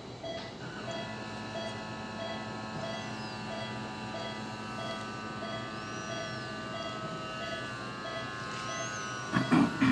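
Patient monitor beeping steadily, a little under two beeps a second, while background music of sustained, sitar-like notes comes in about a second in. A few loud knocks near the end.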